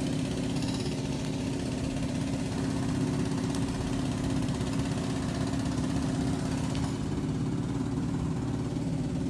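A machine running with a steady low hum, unchanging throughout.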